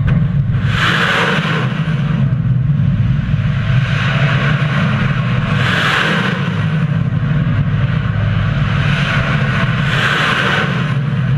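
A loud, steady low rumble that starts abruptly, with a rushing hiss above it that swells and fades about every four to five seconds.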